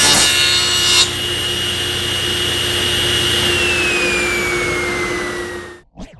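Woodworking power tool running: it cuts wood at first, the loud cutting noise stops about a second in, and the motor runs on with a steady whine. It then winds down with the whine slowly falling in pitch, dying out near the end.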